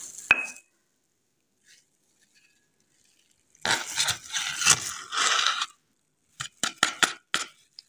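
Pestle grinding and scraping a damp grey paste of sal ammoniac and mercury in a mortar. A single ringing knock comes near the start. After a few seconds of silence there are about two seconds of gritty scraping, then a run of short quick strokes.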